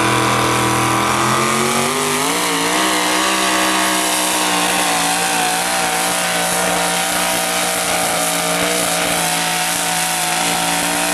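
Modified four-wheel-drive pulling truck's engine at full throttle as it drags a weight-transfer sled down the track: the pitch climbs over the first few seconds, then holds high and steady.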